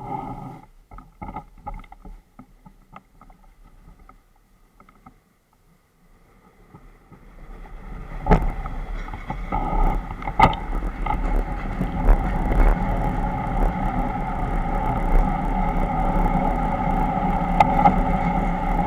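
Diesel train engine running close by: faint and broken at first, then louder over a couple of seconds into a steady drone with a deep rumble, broken by a few sharp clanks.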